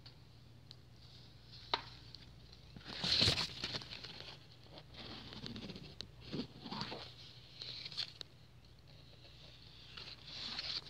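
Irregular rustling and light clicks of handling noise, as plant leaves brush past a phone held in among them; the loudest rustle comes about three seconds in. A faint steady hum runs underneath.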